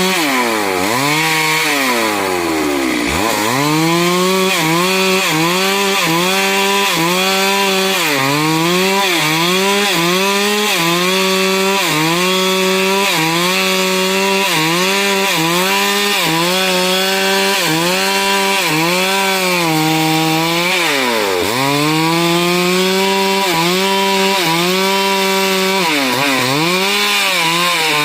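Stihl MS 382 two-stroke chainsaw running flat out and cutting wood. Its engine pitch sags and recovers about once a second as the chain bites, dropping lower three times, about a second in, about two thirds of the way through, and near the end.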